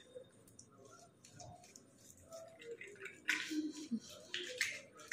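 Hands rubbing foamy face-wash lather over a face: faint, soft wet squishing and rubbing, a little louder about three seconds in and again just before the end.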